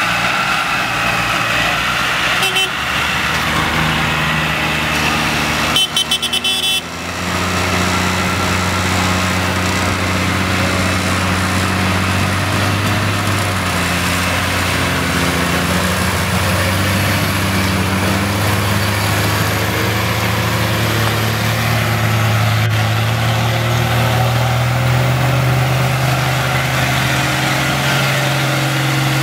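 Heavy diesel farm machinery (a cane loader and a tractor) running steadily, with its engine note rising a little near the end. A short burst of knocks comes about six seconds in.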